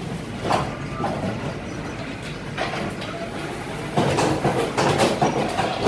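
Fully automatic fly ash brick and block making machine running with a steady mechanical hum, broken by irregular clanks that come closer together near the end.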